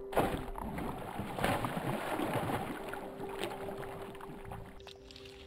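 A bass hitting a bait at the water surface: a sudden splash, then churning, slapping water for a few seconds that dies away near the end.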